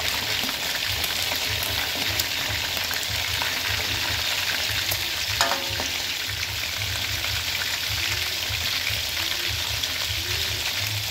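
Field rat pieces frying in hot oil in a metal wok, a steady sizzle with fine crackling pops as they are fried to crispness.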